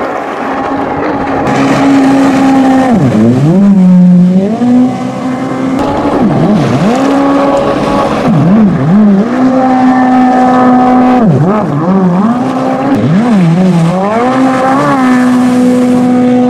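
Race jet ski's engine running at high revs, its pitch dropping sharply and climbing back several times as the throttle is eased and reopened through hard turns.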